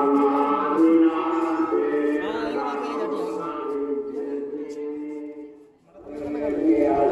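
Several voices chanting together on long held notes, with a brief break about six seconds in.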